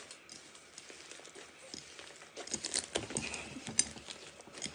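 Slime being kneaded and squeezed by hand, giving soft sticky clicks and crackles that come thicker and faster in the second half.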